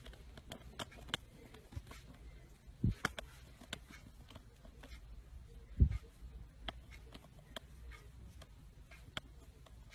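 Faint scattered taps and clicks, with two dull thumps about three and six seconds in, as a grey cat and a hand swat at each other in a play-fight.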